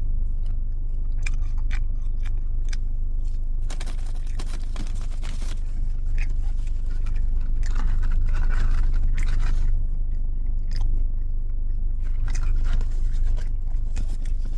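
Close-up chewing and crunching of breaded spicy chicken fries, in clusters of small crackly clicks, over a steady low rumble.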